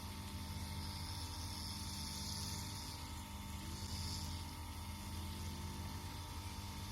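Homemade belt grinder's 0.55 kW electric motor, salvaged from a hydrophore pump, running steadily with a low hum and a faint whine.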